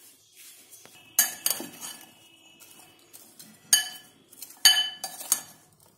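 Metal spoon clinking against a glass bowl while tossing raw potato sticks in a flour-and-spice coating: about five sharp clinks at uneven intervals, each with a brief ring.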